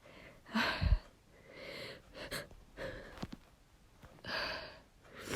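A woman's hitching, gasping breaths and sniffs as a sneeze builds up and does not come, in a series of short breathy bursts, the strongest about a second in.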